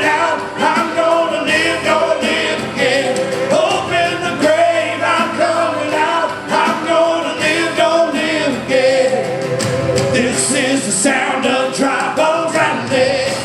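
Live worship music: singers holding and bending long notes over a full band.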